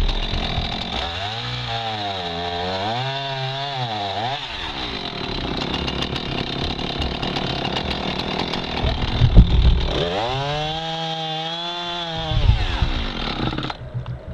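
Husqvarna Rancher two-stroke chainsaw cutting logs, its engine pitch dropping under load and climbing back twice. A few loud knocks come about nine seconds in.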